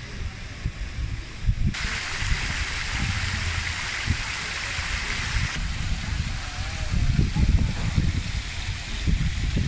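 Tiered stone fountain splashing, its falling water an even rush that comes up suddenly about two seconds in and fades back a few seconds later. Low rumbling buffeting runs underneath throughout.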